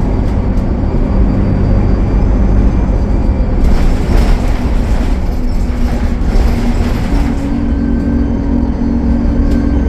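A bus's Cummins ISL9 diesel engine and drivetrain running under way, with a rushing hiss for a few seconds in the middle. The engine note steps slightly higher about seven seconds in.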